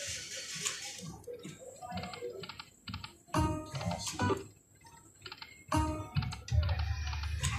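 Poker machine game sounds: a string of sharp electronic clicks with short ringing tones and jingles between them.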